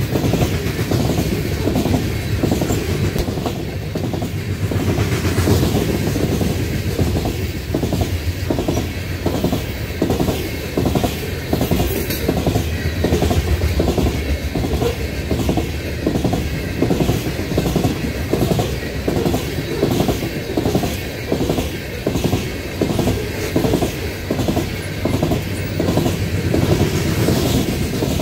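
Coal train's steel hopper cars rolling past close by: a steady low rumble with a rhythmic clickety-clack as the wheels pass over the rail joints.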